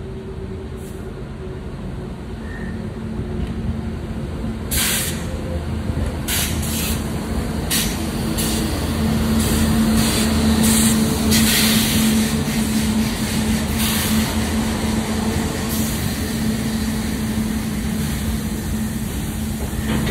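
Electric freight locomotive moving slowly past close by, its steady hum growing louder as it comes nearer, with several short hisses of air.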